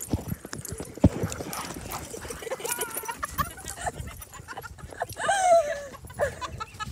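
Rapid thumps and rustling of someone walking or running over grass and sand while carrying a phone. A high cry falling in pitch rings out about five seconds in, with a few shorter high calls before it.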